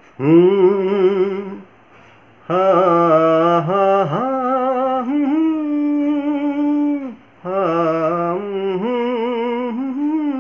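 A man humming a tune in three phrases, the middle one long and held, with a wavering vibrato.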